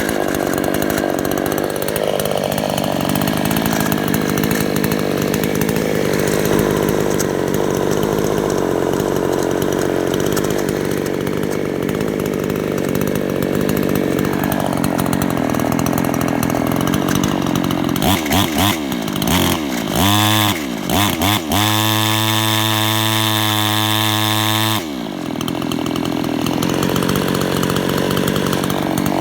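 A motor running with a rattling noise, its pitch swinging up and down at times. A little past the middle a strong, steady pitched hum with many overtones comes in, wavers for a few seconds, holds, then stops suddenly.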